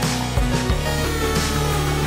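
Background music with a bass line and drum hits.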